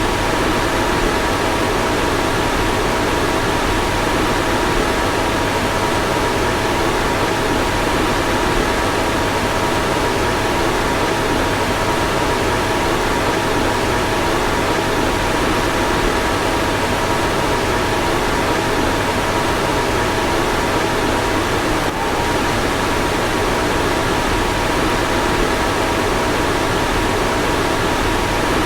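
Car fan running steadily: an even rushing noise with two faint steady whining tones, and a brief slight dip about three quarters of the way through.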